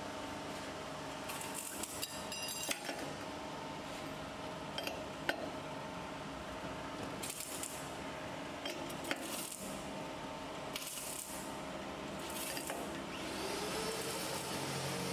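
Steel open-end wrenches clinking and scraping against nuts on a threaded rod as the guide rod is tightened, a few scattered metallic clicks over a steady machine hum that grows a little louder near the end.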